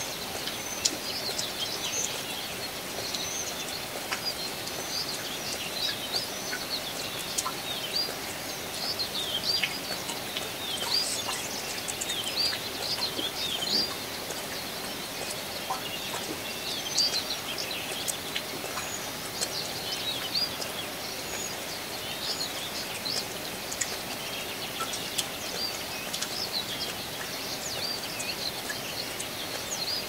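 Steady hiss of summer rain with many small birds chirping and twittering throughout.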